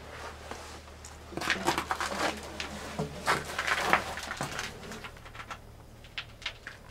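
Scraping, rustling and clicking of someone moving about and handling things in a cramped metal compartment. The flurry starts about a second and a half in and lasts a few seconds, with a few single clicks near the end. A low steady hum sits underneath.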